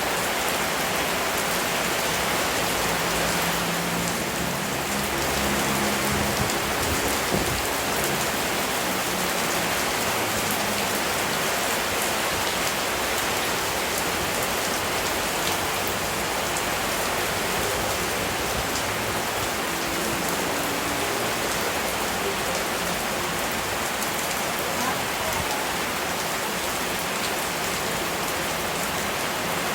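Steady rain: an even hiss of rainfall with scattered sharp drop ticks.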